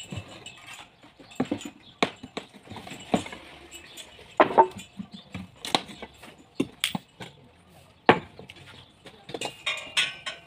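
Irregular sharp knocks and scrapes of a steel pry bar striking and levering wooden formwork boards off a freshly cast concrete foundation wall, with the strongest blows a little past four seconds and about eight seconds in.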